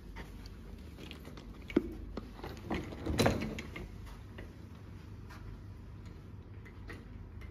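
Suitcases being wheeled across a carpeted room and set down: scattered knocks and clicks of the handles and cases, with a sharp knock a little under two seconds in and a louder clatter a second or so later, over a low room hum.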